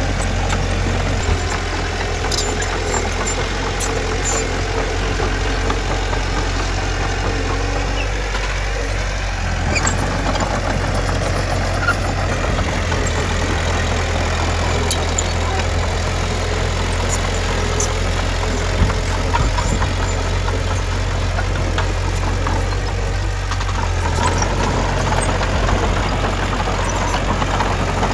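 Heavy diesel earthmoving machine engine running steadily with a low drone, with a few short light clanks now and then.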